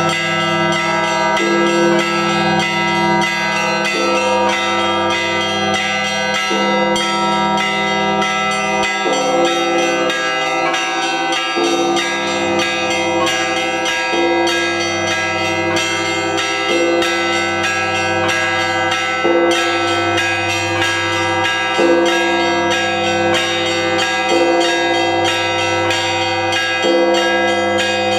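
Orthodox church bells ringing in a continuous festive peal: several bells struck in quick rhythm, their tones ringing on over one another.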